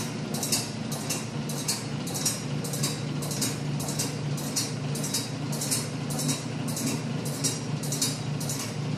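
Coin-operated Cow Pony kiddie ride running: a steady electric motor hum with a regular click about twice a second as the horse rocks back and forth.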